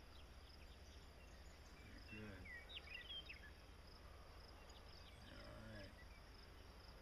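Faint rural outdoor ambience: insects chirping in a steady pulsing trill over a low steady rumble, with faint distant voices twice.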